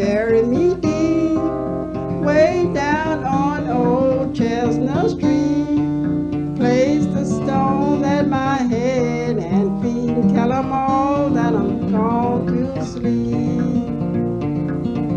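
Guitar-led music: strummed acoustic guitar under a wavering lead melody that bends between notes, with no words sung.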